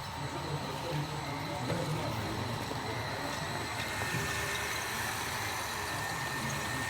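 Radio-controlled model crawler loader working, a steady engine-like running sound. A thin high whine joins about three seconds in.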